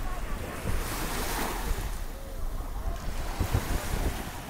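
Small waves breaking and washing up on a sandy shore, with a louder surge of surf about a second in. Wind buffets the microphone throughout with a low rumble.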